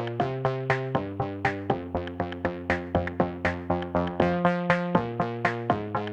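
Background electronic music: synthesizer chords over a steady drum-machine beat.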